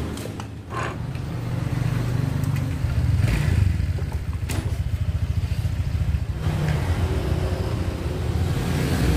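A motorcycle engine running steadily with a low, rapidly pulsing rumble, with a few sharp metal knocks of tools over it.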